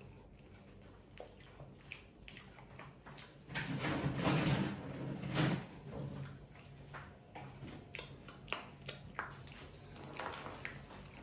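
A person eating, mouth noises of chewing close to the microphone, with a louder stretch of about two seconds near the middle and a scattering of small clicks.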